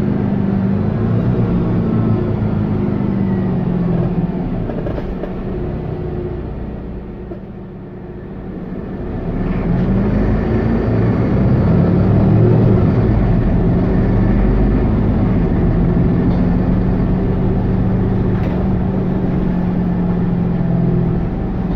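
Mercedes-Benz Citaro C2 G articulated city bus's diesel engine and Voith D864.6 automatic gearbox heard from inside the cabin. The bus eases off and quietens about six to eight seconds in, then accelerates again, the engine note climbing and dropping in arcs before holding steady at cruise.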